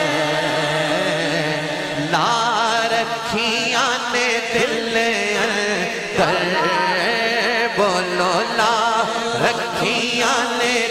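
A naat being sung: long, melismatic held vocal notes with strong vibrato over a steady background drone.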